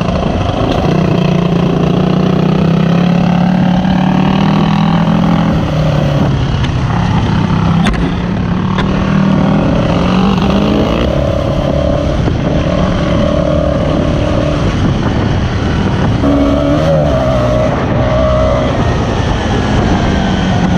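Off-road engine running hard along a dirt track, its note stepping up and down as the rider works the throttle and gears, with wind rush on the microphone.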